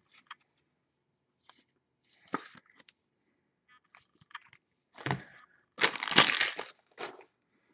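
Trading cards in plastic sleeves and rigid top loaders being handled, short rustles and crackles of plastic, with a louder burst of crinkling about six seconds in.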